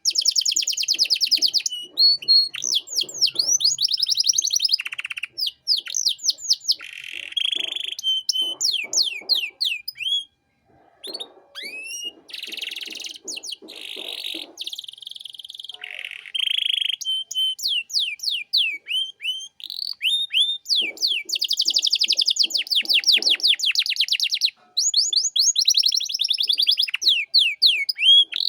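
Domestic canary singing a long, continuous song of fast rising trills and buzzy rolls, with a brief pause about ten seconds in.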